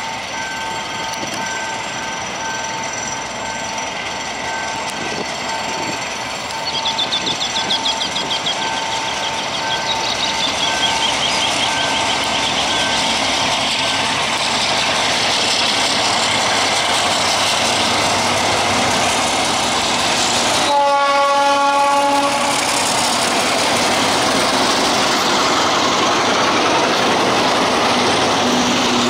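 ALCO RSD-16 diesel locomotive, with its 12-cylinder 251 engine, hauling a loaded coal train past at close range, the engine and the wheels on the rails growing louder as it nears. A high wavering squeal comes at about seven to ten seconds in, and a short horn blast about three-quarters of the way through.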